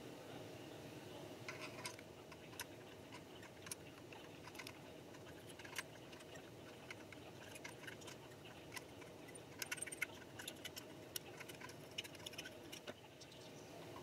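Light metallic clicks and ticks of a small screwdriver working the screws on a 2013 Mac Pro's CPU board and metal heatsink assembly, coming in scattered irregular bunches and busiest about ten seconds in, over a faint steady hiss.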